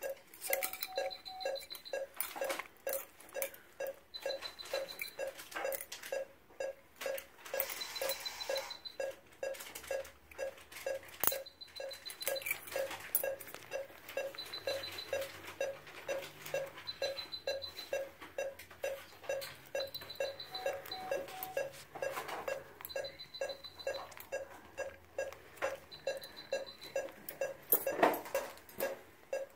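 Surgical patient monitor beeping with the anaesthetised dog's heartbeat: a short low beep a little over twice a second, steady throughout. A higher short beep repeats every couple of seconds, and there is one louder click near the end.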